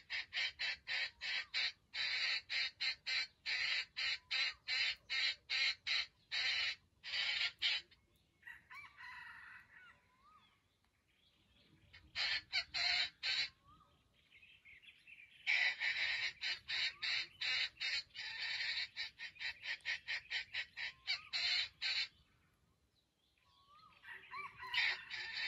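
Wild junglefowl calling: long runs of rapid clucking at about six notes a second, broken by pauses that hold a few short rising-and-falling calls.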